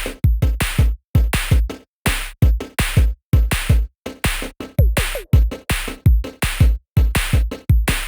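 Electronic background music with a steady drum-machine beat: deep kick drums and sharp snare hits about twice a second.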